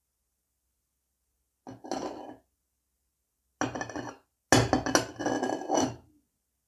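Upturned porcelain coffee cup scraping and clinking against its porcelain saucer, in three short bouts, the last and longest as the cup is lifted off the saucer.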